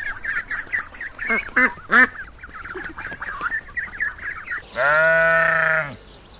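Lesser whistling ducks give many short, high whistled calls in quick succession, overlapping one another. About five seconds in, a sheep gives one loud, steady bleat lasting about a second.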